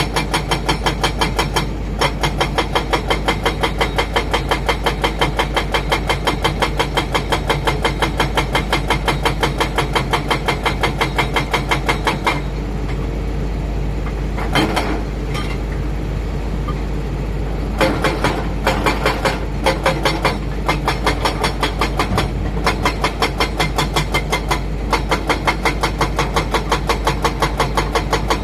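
Heavy diesel machinery running, with a regular pulsing clatter about four times a second. The clatter stops for several seconds midway, leaving a steadier hum broken by a few louder knocks.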